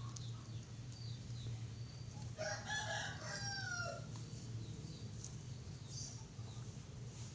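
A rooster crows once, about two and a half seconds in, for roughly a second and a half, falling in pitch at the end.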